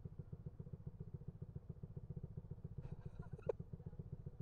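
Motorcycle engine idling with a steady, fast low pulsing, and a brief sharp click about three and a half seconds in.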